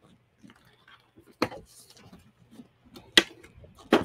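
Craft tools and paper handled on a tabletop: three sharp knocks, the loudest about three seconds in, as a plastic paper trimmer is moved across the table and set down, with light rubbing of paper between them.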